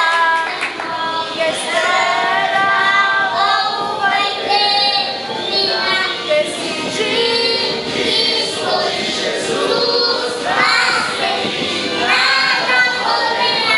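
Children singing a song.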